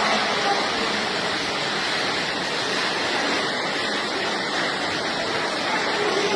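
Steady rushing of fast-flowing floodwater, an even roar of water with no breaks.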